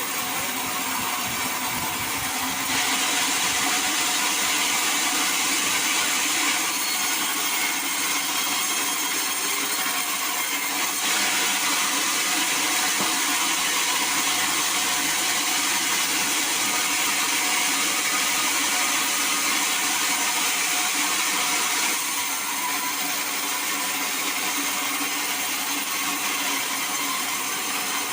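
Sawmill saw running steadily and cutting teak. It is louder and hissier from about three seconds in until the last few seconds.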